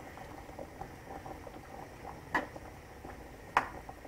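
Pot of sweet potatoes bubbling at a boil, with two sharp clinks of metal on the pot about two and a half and three and a half seconds in as they are checked.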